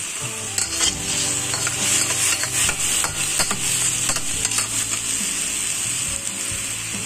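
Diced chicken sizzling in oil and soy-based sauce in a wok while a metal spatula stirs and scrapes it. The scrapes and clinks come thickest from about half a second in to about four and a half seconds, over a steady sizzle.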